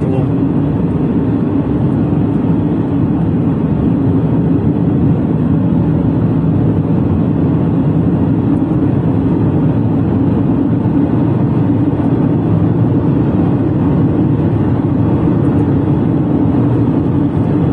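A car driving at road speed, heard from inside the cabin: a steady, even low rumble of road and engine noise.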